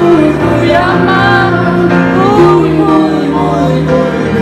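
Live concert music with singing: an ornamented melody bending through held and gliding notes over steady sustained low notes.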